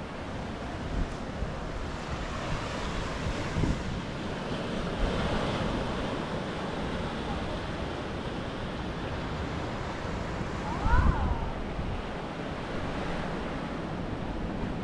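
Sea waves washing on the shore, with wind buffeting the microphone; the surf swells for a few seconds, and a short thump comes about eleven seconds in.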